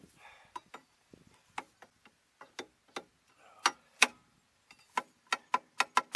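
Hammer blows on metal at a seized rear wheel, a dozen or so sharp ringing strikes at an uneven pace. The hardest land about four seconds in, and the blows come quicker near the end as the stuck wheel is beaten loose from its hub.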